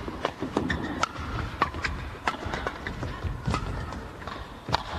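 Badminton rally in women's singles: sharp racket strikes on the shuttlecock and the players' footwork on the court, sounding as irregular knocks a few times a second.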